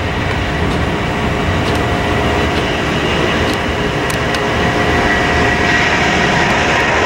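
McDonnell Douglas MD-90 airliner's rear-mounted jet engines at takeoff thrust during its takeoff roll: a steady rumble with a high whine that grows louder near the end.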